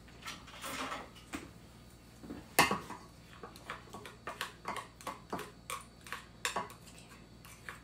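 A kitchen utensil tapping and scraping against a stainless-steel mixer bowl while butter is knocked off into it: a string of short clicks, with one louder knock about two and a half seconds in.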